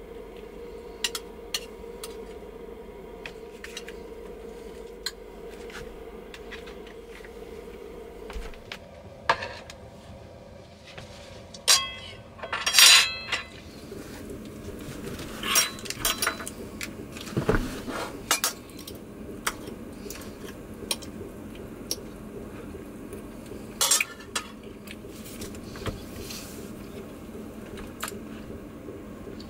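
Kitchen clatter of a pot, a plate and cutlery: scattered clicks and clinks as pierogies are served and eaten, with the loudest run of clinks about twelve seconds in. A steady hum runs underneath and stops about eight seconds in.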